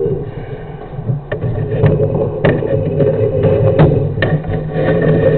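Steady mechanical hum with irregular sharp clicks and knocks through it.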